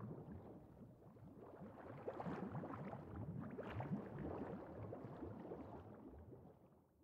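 Water bubbling and gurgling, a dense run of small bubble sounds that fades out near the end.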